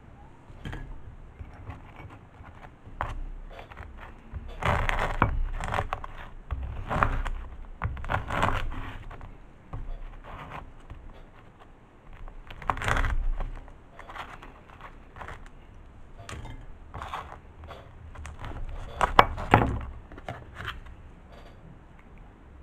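Kitchen knife cutting crusty baguette slices into cubes on a wooden chopping board: irregular crunching, scraping strokes as the blade goes through the crust, with sharp knocks of the blade on the board.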